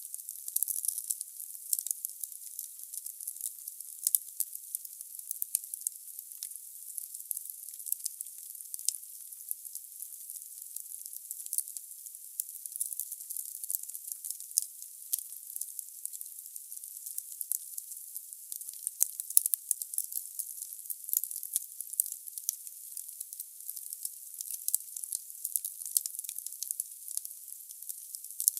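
Wood fire burning in a fireplace: a steady high hiss with many irregular sharp crackles and pops of burning logs, a few louder snaps among them.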